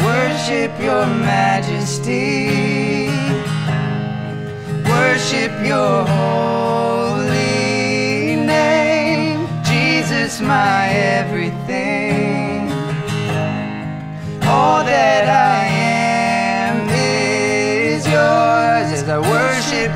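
Worship song: male vocals singing a slow melody over a strummed acoustic guitar.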